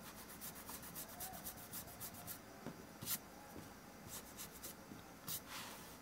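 Faint scratching and rubbing of writing on a paper textbook page: a run of short, light strokes.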